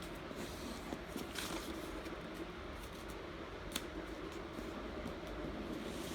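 Faint paper handling: soft rustles and a few light clicks over a steady background hum.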